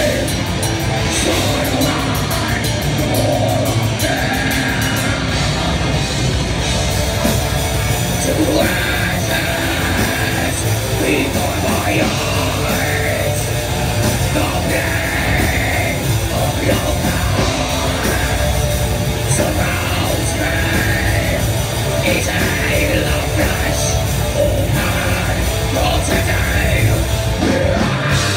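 Heavy metal band playing live at full volume: fast drumming, distorted guitars and harsh shouted vocals, heard from within the crowd.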